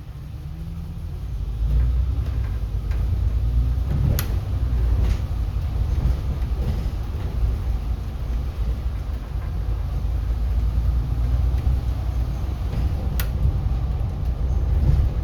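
City bus driving, heard from inside the cabin: a steady low engine and road rumble that builds over the first two seconds, with two sharp knocks, about four seconds in and again near the end.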